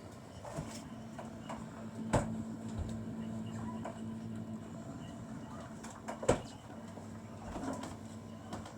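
Indoor room tone with a steady low hum, broken by two sharp knocks, one about two seconds in and one about six seconds in, and a few fainter clicks; faint voices murmur in the background.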